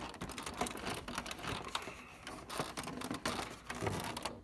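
Irregular clatter of small clicks and taps from the printer's plastic casing panels being pried loose and handled.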